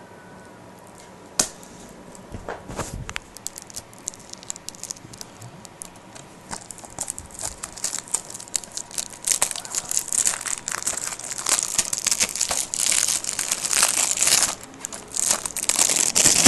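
Clear plastic shrink-wrap being torn and peeled off a Blu-ray case by hand. A single sharp click comes about a second in, then crinkling and tearing that grows louder and busier toward the end.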